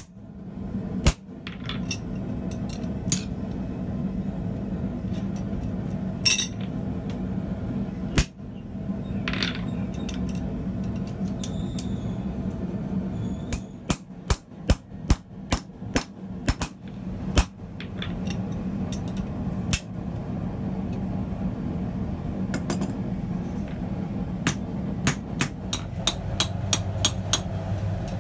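Hand hammer striking a handled punch driven into red-hot steel on an anvil, sharp metal-on-metal blows, scattered at first and then in quick runs around the middle and near the end, over a steady low hum.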